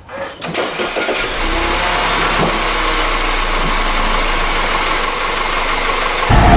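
Audi A4 B8.5's turbocharged 2.0 TFSI four-cylinder, fitted with an APR Carbonio intake, starting about half a second in and then running steadily. The sound cuts off abruptly near the end.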